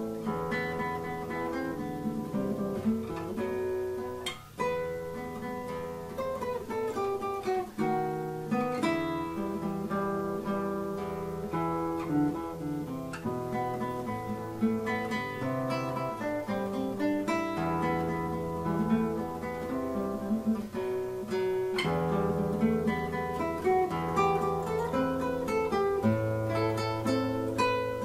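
Instrumental arrangement of an enka melody on acoustic guitar: a run of plucked notes over a changing bass line, with no singing.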